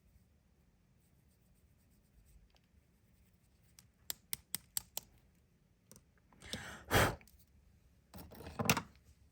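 Light handling noises at a work table: a quick run of about five sharp clicks or taps, then two louder brief rubbing or brushing sounds.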